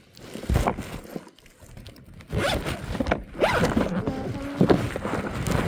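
Baitcasting reel being cranked to wind in line: a rapid zipping, ratcheting sound that starts about two seconds in and carries on, with a faint gear whine joining it later.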